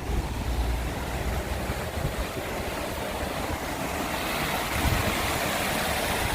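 Wind buffeting the microphone over a steady rushing noise, which grows brighter about four seconds in.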